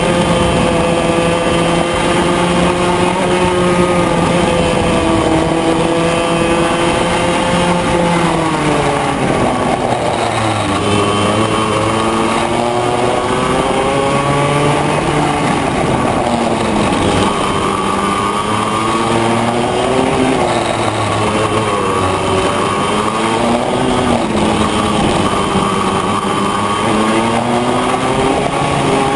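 Yamaha 100J two-stroke kart engine heard on board at racing speed. It is held at high revs for the first eight seconds or so, then the revs fall and climb again several times through the corners.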